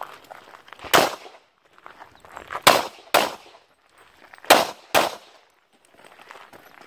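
Handgun shots fired in quick succession at targets. There are five in all: a single shot about a second in, then two pairs, each with the shots about half a second apart.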